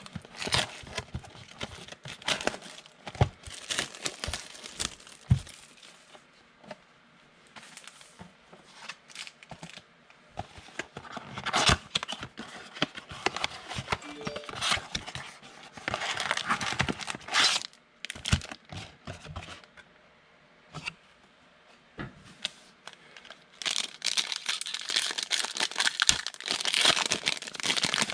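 A 2019 Donruss football trading-card box being handled and a foil card pack torn open by hand. The crinkling and tearing comes in irregular spells with clicks and taps, and the longest stretch is near the end.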